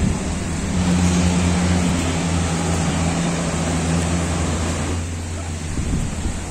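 A boat engine running steadily with a low hum, over a hiss of wind and surf; the hiss eases about five seconds in while the engine hum carries on.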